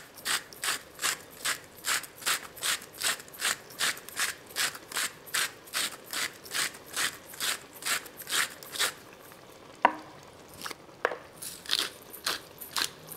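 Hand-twisted salt and pepper mills grinding: a rhythmic ratcheting crunch, about two to three twists a second. It stops about nine seconds in, there is one sharp click, and the grinding starts again near the end.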